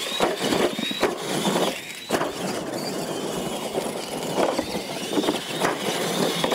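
Electric RC monster trucks racing over dirt: motors and gearboxes whining, rising and falling with the throttle, over the crunch of tyres on loose dirt, with a few sharp thumps as they land off the ramps.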